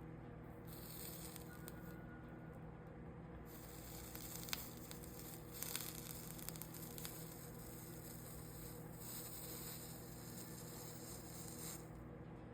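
Faint sizzling of flux as a soldering iron melts solder along copper-foiled stained-glass seams, over a steady electrical hum. There are two light clicks near the middle.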